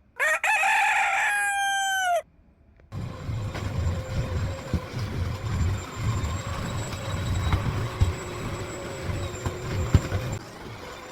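A rooster crows once, a single drawn-out two-second call that drops in pitch at the end. About three seconds in, a steady low engine rumble from a vehicle starts and keeps running.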